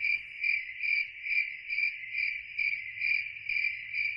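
Cricket chirping sound effect: one steady high chirp that pulses evenly about twice a second. It is the stock gag for an awkward silence after a joke falls flat.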